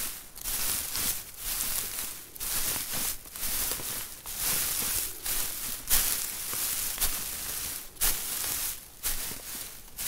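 Footsteps walking on hay, each step a dry, crunching rustle, at a steady pace of about one step a second.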